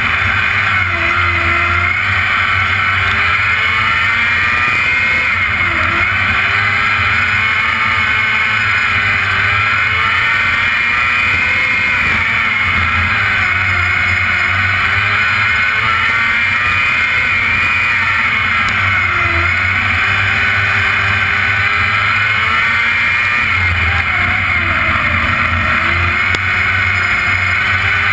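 Non-wing sprint car's V8 engine at racing speed, heard on board. Its pitch dips and climbs back up every several seconds as the car laps a dirt oval.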